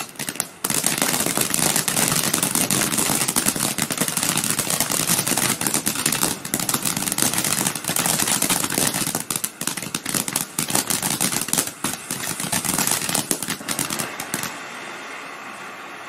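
Ground fountain firework spraying sparks, with loud, dense crackling for about fourteen seconds, then dropping to a softer steady hiss near the end.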